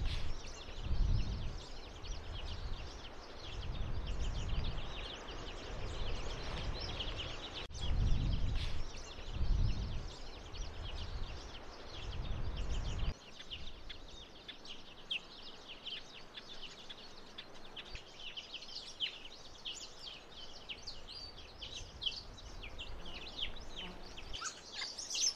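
Many different birds chirping and calling at once from dense flowering bush, a busy, continuous chorus of short high calls. Wind buffets the microphone with low rumbling gusts until about halfway through.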